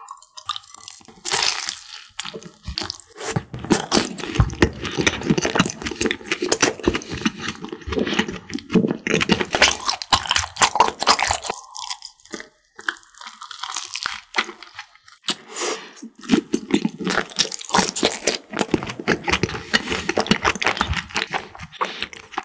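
Biting into and chewing a custard cream croffle (croissant waffle), its crisp crust crunching in many quick, sharp crackles, over and over.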